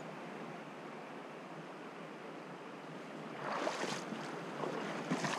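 Shallow river water rushing over stones in a steady wash, with a louder, brighter surge about three and a half seconds in and again near the end.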